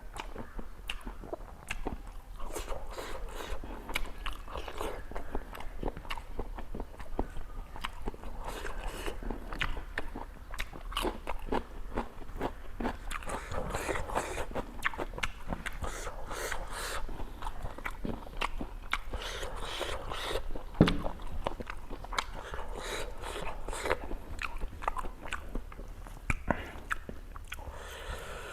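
A person eating close to the microphone: crunching and chewing a meal of fried chicken and yongchak singju, with dense, irregular crackles of crunching and one sharper crunch about two-thirds of the way through.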